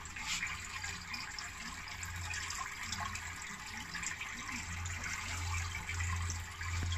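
Water trickling steadily through a balcony hydroponic tomato tower, with a low hum that swells and fades several times.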